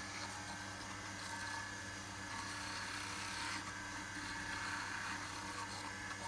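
Wood lathe running with a steady motor hum while beeswax is rubbed against the spinning wooden door knob, giving a soft rubbing hiss that swells and eases several times.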